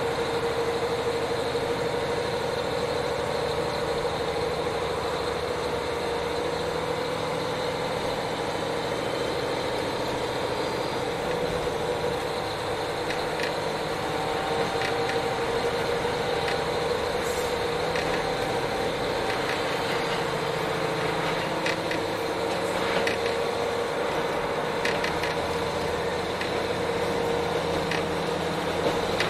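Interior sound of a KiHa 40 diesel railcar: its diesel engine gives a steady, unchanging drone, with a few faint clicks and rattles scattered through it.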